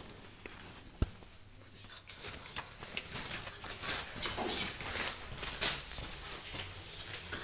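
Footsteps and scuffing on a hard floor with rustling, as people walk along a bare corridor, with a single knock about a second in.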